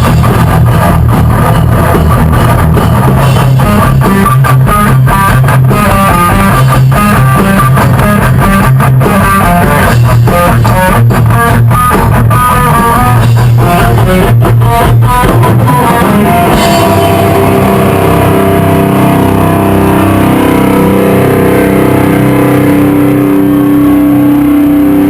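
Rock band music: electric guitar, bass and drums playing a driving rhythm. About two-thirds of the way through the drums stop and held guitar chords ring on.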